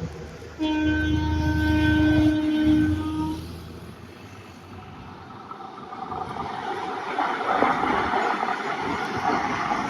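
Train horn sounding one steady blast of about three seconds over a low rumble, followed by the rumble and clatter of a train building up over the last few seconds as it comes closer.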